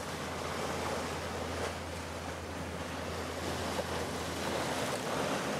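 Wind and choppy river water, an even steady rush, with a steady low hum underneath.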